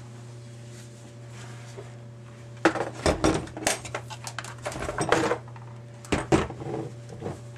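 Hard plastic center console trim from a Toyota FJ Cruiser clattering and knocking against the workbench as it is picked up and handled, a string of sharp clicks and knocks in several clusters from about two and a half seconds in. A steady low hum runs underneath.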